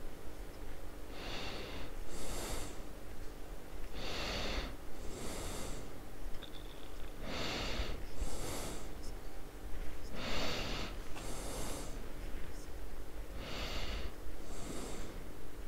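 A person breathing slowly and heavily close to the microphone, in and out about every three seconds, over a low steady hum.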